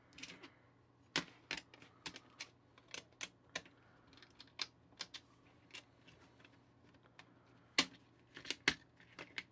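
Irregular light clicks and taps of hard plastic parts being handled: the black plastic frame halves and small pieces of a disassembled toy cap gun knocked and fitted together by hand, with two sharper clicks near the end.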